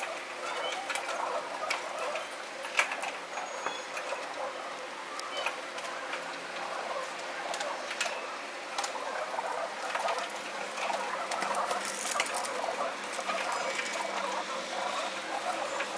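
Pigeons pecking at food and scuffling on a concrete ledge: a steady run of quick taps and clicks over a busy jumble of bird sounds, sped up to double speed.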